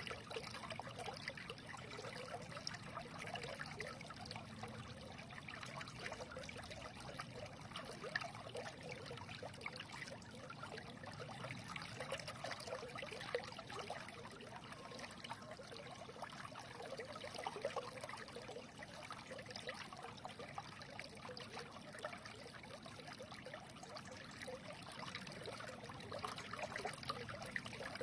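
A small stream trickling and burbling over stones, a steady babble of water with a constant flicker of small splashes.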